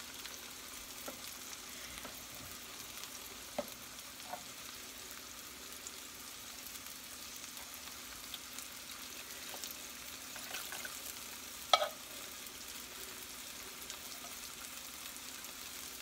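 Chicken pieces frying in a cast iron skillet, a steady sizzle. A few light clinks of a spatula against a tin can sound over it, with one sharp, louder clink about three-quarters of the way through.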